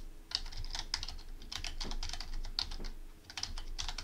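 Computer keyboard typing: quick runs of keystrokes, with a short pause about three seconds in.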